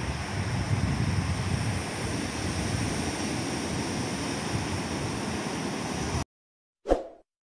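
Surf breaking on an offshore reef, heard as a steady rush of noise heavy in the low end. It cuts off abruptly about six seconds in, and a moment later a single short, loud knock sounds.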